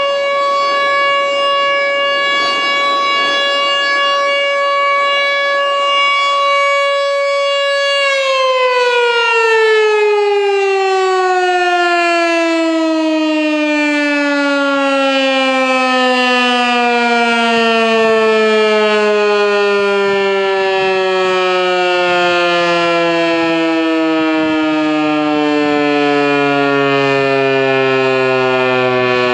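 American Signal T-128 outdoor warning siren holding a steady, unusually high-pitched tone for a T-128, then about eight seconds in it starts winding down, its pitch falling steadily.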